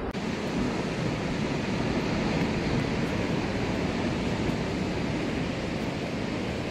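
Steady rushing of ocean surf and wind.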